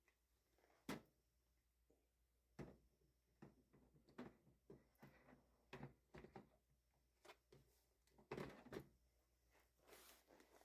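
Faint, scattered plastic clicks and knocks of toner cartridges and drum units being handled and fitted into a colour laser printer, with a couple of louder knocks about a second in and near the end.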